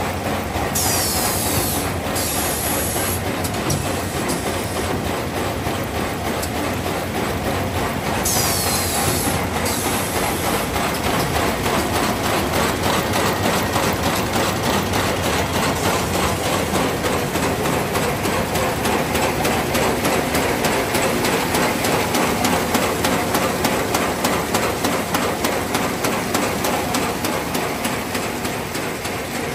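Oyang high-speed paper bag machine running at production speed: a loud, steady, fast mechanical clatter. Brief hissing bursts come about a second in and again about eight seconds in.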